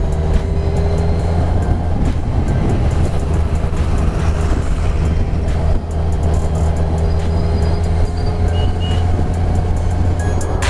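Kawasaki Ninja 1000's inline-four engine running steadily at highway cruising speed, mixed with wind rush over the rider's camera.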